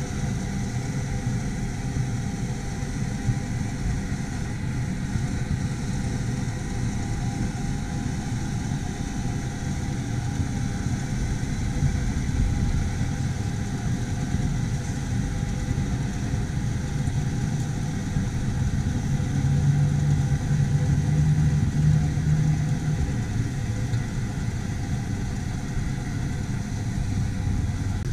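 Allett C34E battery-electric cylinder mower running as it is pushed across turf: a steady motor hum with faint higher whine from the spinning cutting cylinder, the hum growing stronger for a few seconds about two-thirds of the way through.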